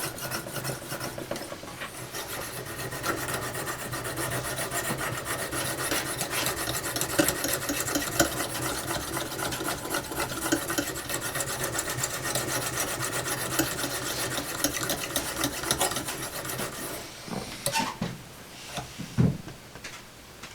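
A fine Lansky hone stroked steadily back and forth along a steel saw-blade edge, a continuous rasping scrape of light polishing strokes that barely cut the metal, buffing out the last scratches toward a near-mirror edge. The strokes stop about three seconds before the end, followed by a few light knocks.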